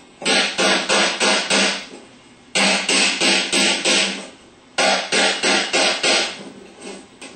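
Hammer tapping on a Ford 3G alternator's aluminum front housing to drive it off the stator: bursts of about five quick metallic taps, roughly three a second, each burst ringing on and separated by short pauses.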